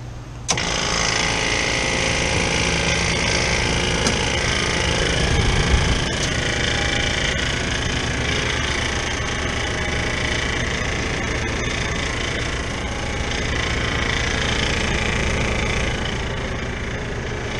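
Freezer's refrigeration condensing unit kicking on suddenly about half a second in, then running steadily.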